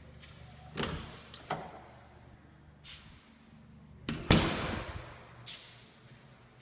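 A door being handled: sharp knocks about a second in, two quick ones shortly after, a loud thump with a short ringing tail about four seconds in, and a softer knock near the end.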